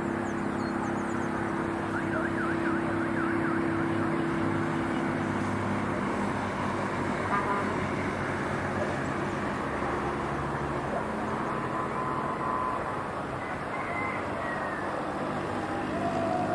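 Urban street ambience: a steady traffic rumble with vehicle engines running. About two seconds in there is a brief rapid warbling whistle, and later a few faint short glides.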